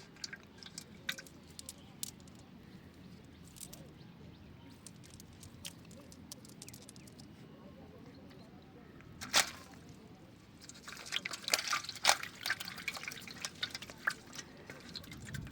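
Water dripping and splashing in short, irregular drops, with one sharp splash about nine seconds in and a quick flurry of splashes near the end.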